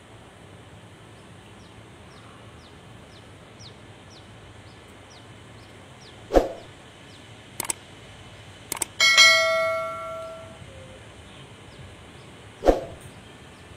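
Subscribe-button animation sound effects: a sudden pop, two short clicks, then a notification-bell ding that rings out and fades over about a second and a half, and a second pop near the end. Underneath is quiet outdoor ambience with a high chirp repeating about twice a second.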